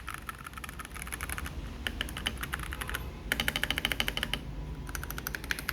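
Typing on an FL Esports CMK87 mechanical keyboard with Kailh Box Cool Mint switches: rapid runs of keystroke clicks in about four bursts with short pauses between them.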